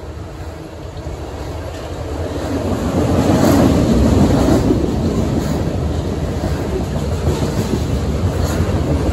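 Freight train of tank cars rolling past below, steel wheels rumbling on the rails with a few sharp clicks. The rumble swells over the first three seconds, then holds steady.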